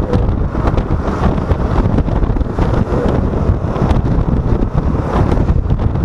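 Wind buffeting the microphone, loud and steady, over a low rumble.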